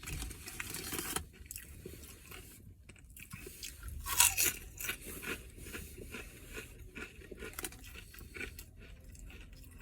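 A person chewing crunchy Old Dutch roasted-chicken potato chips close to the microphone, a steady run of crackling crunches with a louder crunch about four seconds in.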